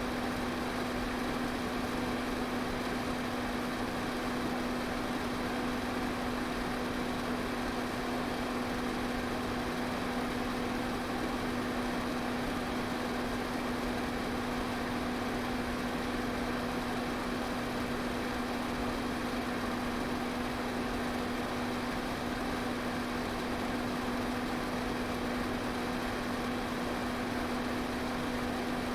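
Electric fan running steadily: an even whoosh of moving air with a constant low motor hum.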